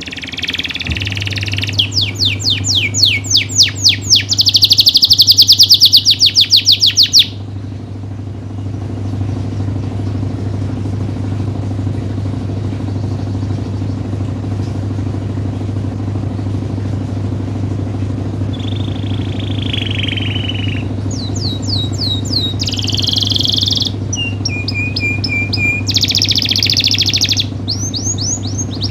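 Domestic canary singing: loud, fast trilled rolls of rapidly repeated notes for the first several seconds, then a pause of about ten seconds, then more short trills and phrases near the end. A steady low hum runs underneath.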